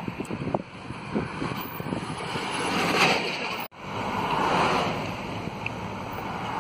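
Wind rushing over a phone microphone from a moving car, mixed with road noise. The sound breaks off abruptly for an instant a little past halfway, then carries on the same.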